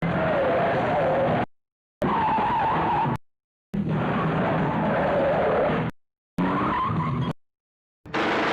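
Car tyre screech sound effect, heard four times with dead silence between: each a wavering squeal over a noisy rumble, lasting one to two seconds and stopping abruptly.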